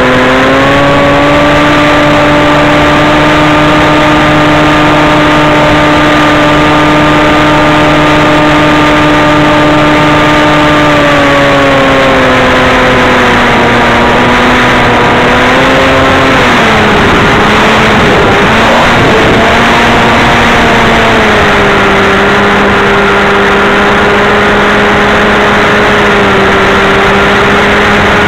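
Motor and propeller of a scratch-built FPV flying wing, heard through its onboard camera as a loud steady drone over rushing wind. Partway through, the pitch drops in steps, wavers for a few seconds, then holds lower as the throttle is eased for the descent.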